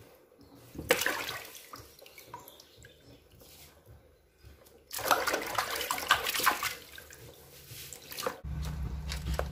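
Water sloshing and splashing in a basin as crabs are rubbed and swished clean by hand, in a short burst about a second in and a longer stretch from about five to seven seconds. A steady low hum comes in near the end.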